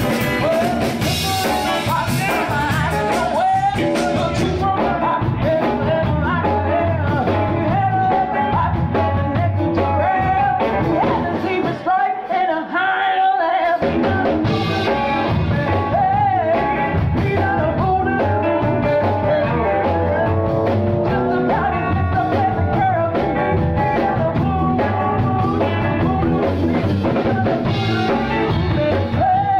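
Rock and roll band music with a singer, guitar and drums. The bass and drums drop out briefly about twelve seconds in, then the band comes back in.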